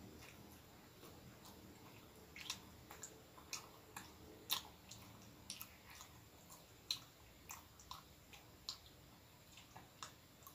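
A person chewing a mouthful of soft bread roll: irregular wet mouth clicks and smacks, a few a second, the loudest about halfway through.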